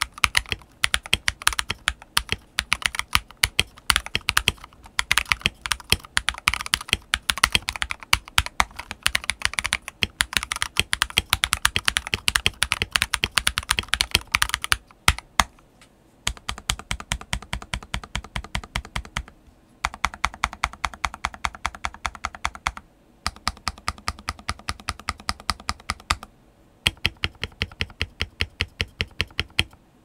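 Eyooso Z11 60% hot-swappable mechanical keyboard with Akko CS Matcha Green switches and XDA-profile PBT keycaps, dampened inside with pennies in hot glue and shelf liner, being typed on fast with both hands for about fifteen seconds. After that, keys are pressed one at a time at a slower, even pace of about four a second, in runs broken by short pauses.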